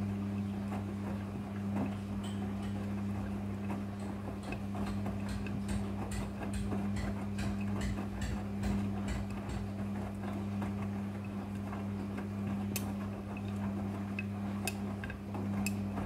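Midea front-loading washing machine's drum turning during the wash: a steady motor hum with many light clicks and ticks as the wet clothes tumble, stopping at the very end.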